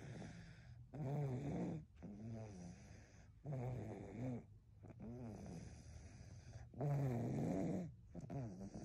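A sleeping baby snoring in a steady rhythm of buzzing, pitched breaths, with three stronger snores among softer ones. The parent puts the snoring down to tiredness, not to a congested, rattly chest.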